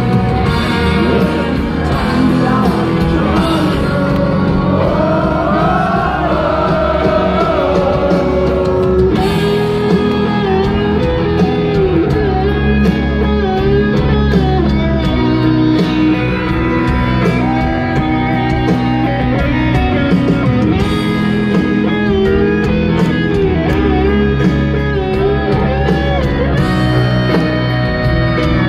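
Rock band performing a power ballad live: sung lead vocal over piano, drums and electric guitar, as a crowd recording in a large hall.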